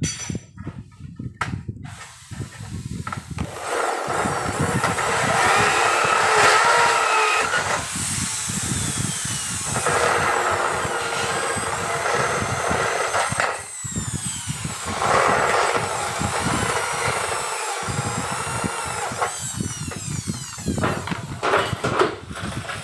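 Corded electric hand drill cutting through an aluminium door-frame profile, in three long passes with short pauses between them. The motor's whine falls away as it spins down at each pause.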